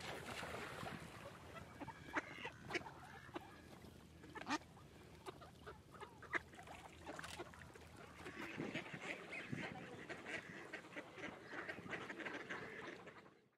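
Mallard ducks quacking, with scattered short calls and sharp clicks; the calling gets busier over the last few seconds and fades out at the very end.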